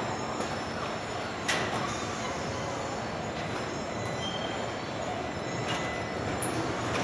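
Car assembly plant machinery running: a steady mechanical din with a single sharp knock about a second and a half in, and a few fainter clicks.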